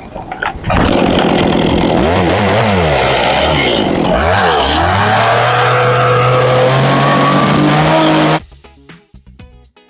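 Chainsaw running loud, its pitch dipping and rising twice as the throttle is eased off and opened again, then held high and steady before cutting off abruptly near the end. Faint music with plucked notes follows.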